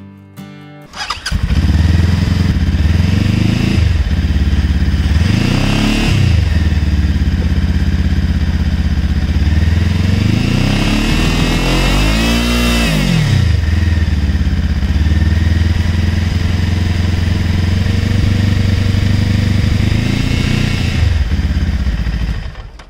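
Zongshen Cyclone RZ3S motorcycle engine idling and revved twice, a short blip about five seconds in and a longer rise and fall around twelve seconds in, then cut off near the end. It is a test for the headlight's resonance buzz between 2500 and 3500 rpm, which damping sheets on the headlight lens cover have cured.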